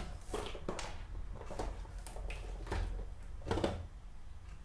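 Light handling sounds: about five soft knocks and rustles of small objects being moved and set down, over a low steady hum.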